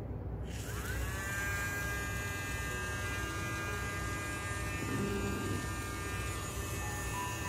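Dremel rotary tool with a cut-off wheel in its keyless chuck, switched on about half a second in. It spins up with a rising whine, then runs free at a steady high speed.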